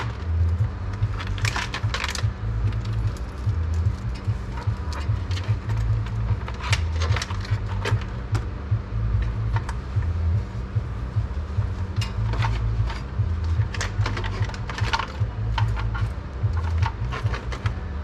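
Scattered clicks and rattles of cables, connectors and small parts being handled, over a steady low hum of running machines.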